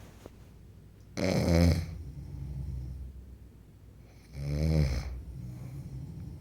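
A man snoring: two loud snores about three seconds apart, each under a second long, with a quieter low breathing rumble between them.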